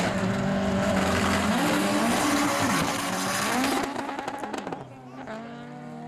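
Two drag-racing cars launching from the start line: engines revving hard and climbing and falling in pitch through the launch and gear changes. About four to five seconds in, the sound drops off to a thinner engine note that rises steadily as the cars pull away down the strip.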